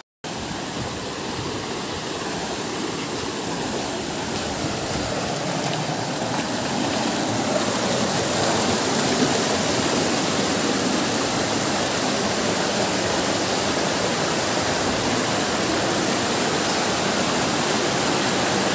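White water of a rocky mountain stream rushing and cascading over boulders. It is a steady rush that grows louder over the first several seconds, then holds.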